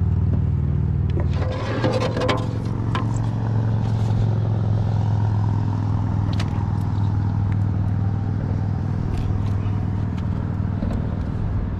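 Steady low drone of road traffic on the bridge overhead. A short burst of scraping and clattering comes about two seconds in.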